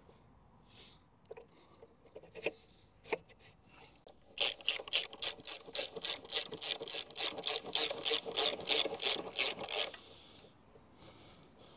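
A hand tool worked in quick, even strokes, about four a second for some five seconds, after a few scattered clicks and knocks.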